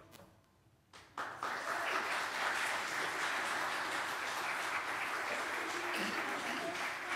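Congregation applauding. The clapping starts about a second in, after a brief hush, and holds at a steady level.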